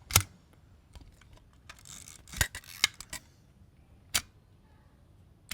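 Zenit B SLR's mechanical shutter being fired at 1/60 s and re-cocked. A sharp clack comes just after the start, then a cluster of clicks with a brief rasp of the wind lever around two and a half to three seconds in. Single clacks follow at about four seconds and again at the end.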